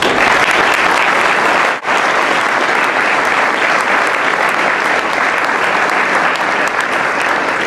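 An audience applauding loudly, a dense steady clapping that breaks off for an instant about two seconds in, then carries on.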